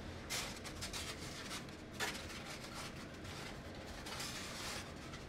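Hands handling and lifting foam-board model fuselage sections: soft rubbing and scuffing of the foam, with brief louder scuffs shortly after the start, about two seconds in, and near the end.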